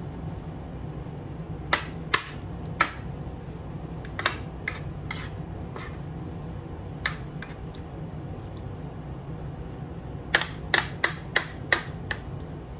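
Metal spoon clinking against a ceramic plate while mixing cubes of pork belly in their marinade: scattered sharp clinks, with a quick run of about six near the end, over a low steady hum.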